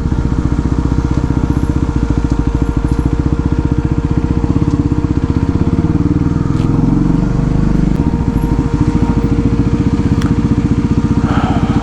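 Motorcycle engine running while riding, a fast, even pulse of engine beats under a steady tone; the engine note dips briefly around the middle.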